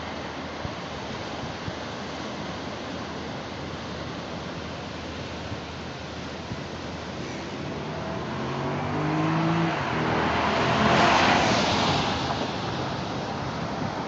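Steady wash of surf and wind, with a motor vehicle driving past: its engine note climbs in steps as it accelerates, growing louder from about eight seconds in, loudest about eleven seconds in, then fading.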